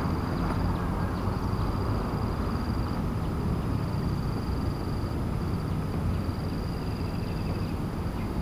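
Steady outdoor background: a continuous low hum with a thin, high, steady whine above it that breaks off briefly every second or two.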